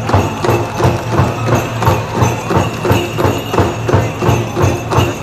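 Powwow hoop-dance song: a drum beaten in a steady rhythm of about three beats a second, with singing over it.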